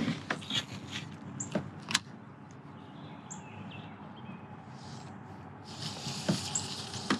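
Light clicks and knocks from handling a baitcasting rod and reel in a kayak, then a quieter stretch with a few short bird chirps and a soft hiss near the end.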